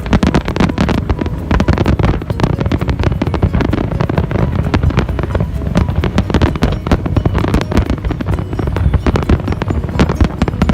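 Fireworks display: a dense, unbroken run of bangs and crackles, many per second, over a low rumble.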